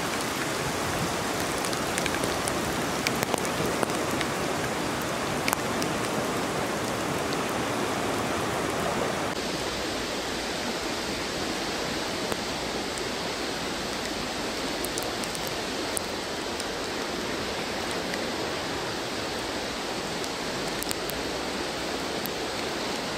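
Steady rushing of fast-flowing floodwater running over a road, mixed with rain and light ticks of drops; the tone of the rush changes about nine seconds in.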